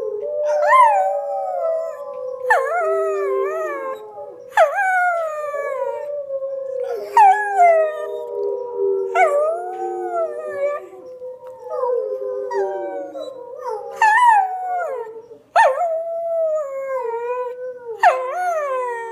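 A schnauzer howls along with a chorus of wolves howling from a TV's speakers. Long held howls overlap throughout, and a new howl starts sharply about every two seconds, each sliding down in pitch.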